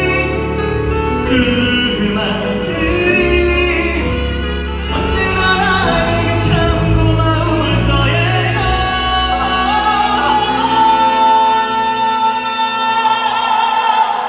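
Live ballad performance: a band accompanying a sung melody line, ending in one long held vocal note.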